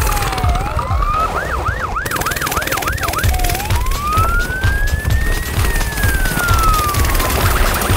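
Police siren sounding: a wail, then a quick run of rapid yelps, then one long slow rise and fall.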